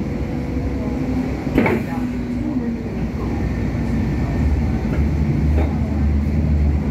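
Hong Kong Light Rail Phase III train running on the track, a steady low rumble with a faint hum. There is one sharp click about a second and a half in, and the low rumble grows heavier from about four and a half seconds.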